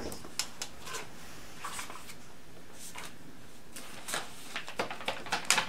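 Paper being handled and rustled at a desk, with scattered light clicks; the clicks and rustles bunch together and are sharpest near the end.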